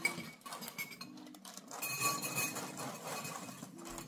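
A metal spoon clinks against a glass bowl, then dry Cinnamon Toast Crunch cereal is poured from the box into a glass bowl, pieces rattling and pattering against the glass for about a second in the middle.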